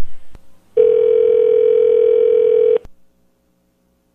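A click, then a telephone ringing tone: a steady electronic tone that sounds for about two seconds, stops, and starts again near the end.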